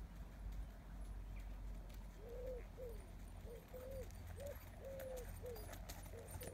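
A bird calling: a run of short, low, repeated notes that starts about two seconds in and keeps going.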